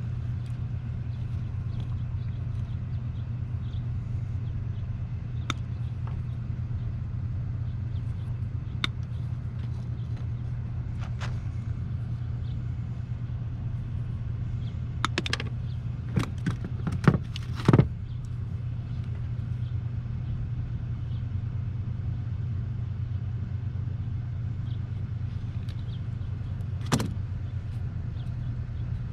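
Small plastic clicks of wires being worked into snap-lock lever connectors, a few scattered and a quick run of louder snaps a little past halfway, over a steady low hum.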